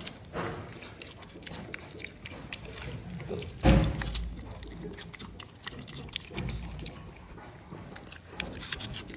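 Wild boar piglet chewing and crunching apple taken from a hand, in a run of small wet clicks, with its hooves tapping on the tiled floor. A single loud thump about three and a half seconds in.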